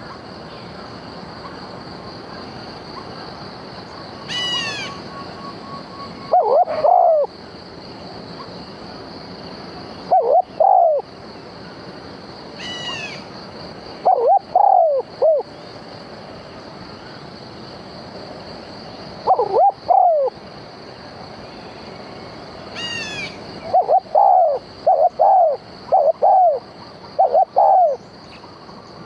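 Birds calling at a trapping decoy: loud short hooting calls repeated in clusters of two to five. A higher call falls steeply in pitch three times, with a steady high-pitched insect drone throughout.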